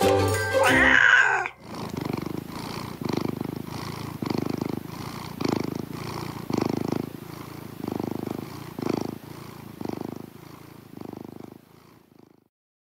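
A closing music jingle ends in the first second and a half; then a domestic cat purrs, the purr swelling with each breath about once a second and fading out near the end.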